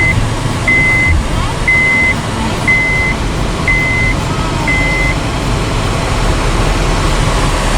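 Steady engine and road noise of a moving vehicle, with a high electronic beep repeating about once a second, six times, that stops about five seconds in.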